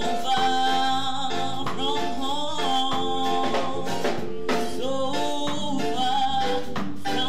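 A woman singing into a microphone with instrumental accompaniment, holding long, slightly wavering notes.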